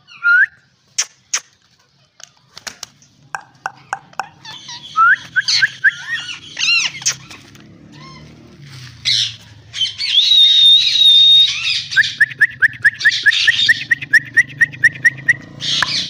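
Ring-necked parakeets calling: a few sharp ticks, then rising squawking call notes, a held whistle, and near the end a fast run of short repeated chirps at about five a second.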